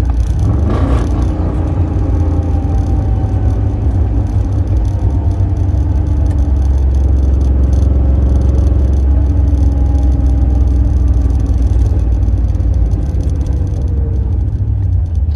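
1968 Camaro's carbureted engine through its chambered exhaust, heard from inside the car while driving: the revs climb in the first second, then the car cruises with a steady deep drone and the pitch sags slowly.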